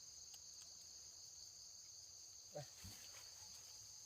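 Faint insect chorus: a steady, even high-pitched drone. There is a brief falling call about two and a half seconds in.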